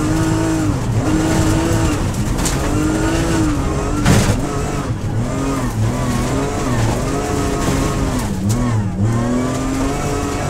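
BMW M3X rally car's engine heard from inside the cabin, running hard at high revs, its pitch rising and falling with throttle and gear changes. There is a sharp knock about four seconds in, and the pitch dips twice in quick succession near the end.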